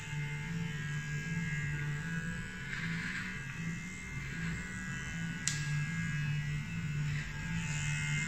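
Electric beard trimmer humming as it cuts through a beard, with a single sharp click about five and a half seconds in.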